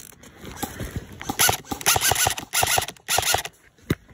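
Airsoft electric rifle firing four short bursts on full auto, each a rapid string of shots at about ten a second, followed by a single sharp click.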